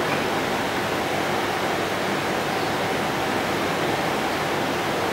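Steady, even hiss of background room noise, with no speech.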